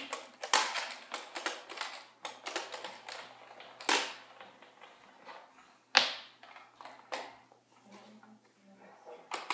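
Plastic clicks and knocks from a Nerf N-Strike Modulus blaster being handled and turned over while a screwdriver works at its battery tray cover: a quick run of clicks at first, then a few separate sharp knocks, the loudest about six seconds in.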